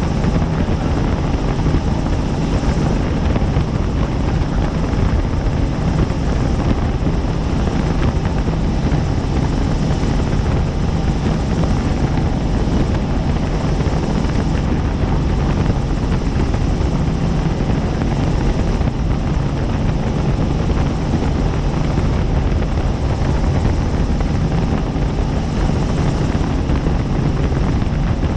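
Helicopter in flight, a steady, unbroken rotor and engine drone recorded from aboard the aircraft.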